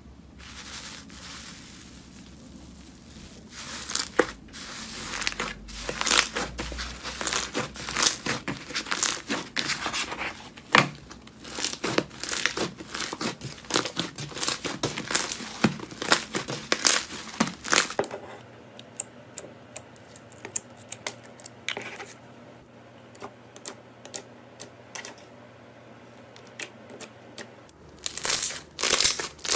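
Slime being squeezed and worked by hand, crackling and popping in quick runs of sharp clicks. About halfway through the clicks thin out to a few scattered pops, and they come thick again near the end.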